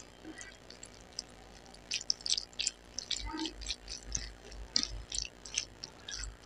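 Wooden chopsticks stirring and tossing sauce-coated noodles on a plate, making quick wet, sticky clicks and squelches that grow busier from about two seconds in.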